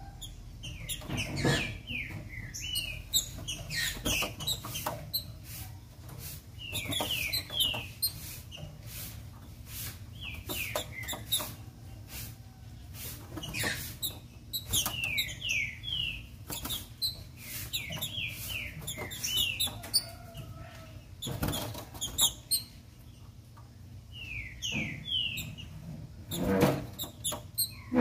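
Female green-winged saltator (trinca-ferro) calling in short runs of three to five quick falling notes, the runs repeated every few seconds. This female song is used to rouse males to sing. Scattered sharp clicks and knocks of the bird hopping and fluttering about its cage.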